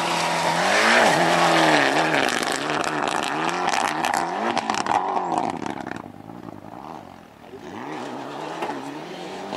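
Mitsubishi Lancer Evolution rally car's turbocharged four-cylinder engine revving hard on a gravel stage, its pitch rising and falling again and again with throttle and gear changes, with many sharp crackles through the middle. It drops away briefly about two-thirds of the way in, then revs up again near the end.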